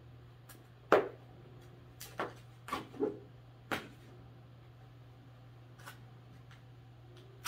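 Duct tape being pulled off the roll and torn: a series of short, sharp rips, the loudest about a second in and several more in quick succession over the next few seconds, with a low steady hum underneath.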